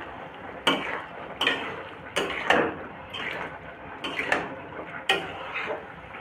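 Metal spatula scraping and knocking against an iron kadai as a bean and potato curry is stirred, in irregular strokes about once a second.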